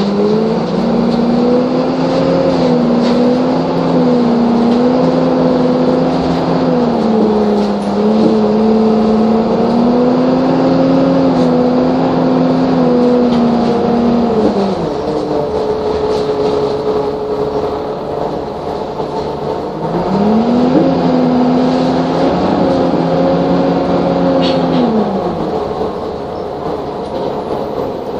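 Optare Solo single-deck bus's diesel engine heard from the rear seats, rising in pitch and holding as the bus pulls away, with a brief dip about eight seconds in. It eases off about halfway through, runs low for a few seconds, then picks up again and eases off near the end.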